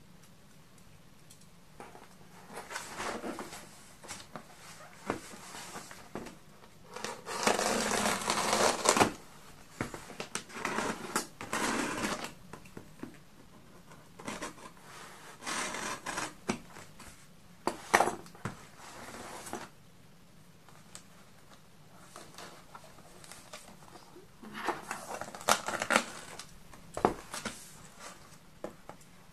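Scissors cutting through packing tape on a cardboard box: irregular stretches of scraping and rustling of tape and cardboard, with a few sharp clicks, the longest stretch about eight seconds in.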